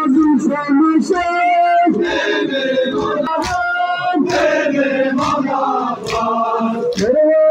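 Crowd of men singing a Shia mourning chant together, the voices wavering and continuous. A few sharp slaps cut through, a little past halfway, from hands beating chests.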